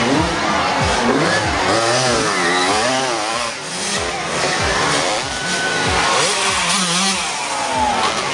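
Motocross dirt bikes revving hard, their engine pitch rising and falling again and again as the riders open and close the throttle and shift on the dirt track, with one bike passing close near the end.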